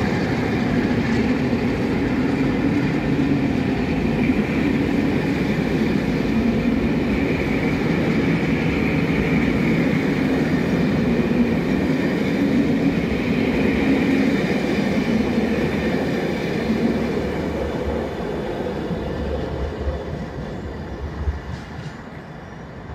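A long train of passenger coaches rolling past at speed, a steady rumble and rattle of wheels on the rails. It fades away over the last few seconds as the end of the train draws off.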